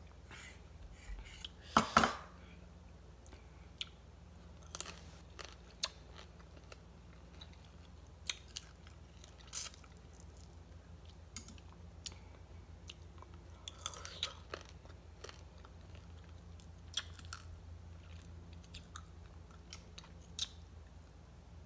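Close-up chewing of crisp shredded green mango salad eaten by hand, with scattered small crunches and mouth clicks. A louder cluster of knocks comes about two seconds in.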